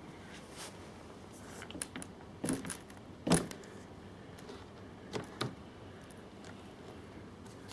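A few short clicks and knocks of hard objects being handled, the loudest about three seconds in, over a low steady background.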